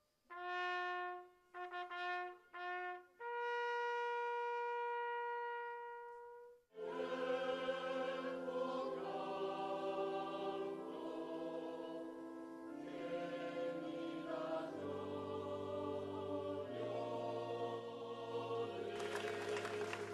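A solo trumpet plays three short notes on one pitch, then a long higher note held and fading out. From about seven seconds in, a choir sings slow, sustained chords.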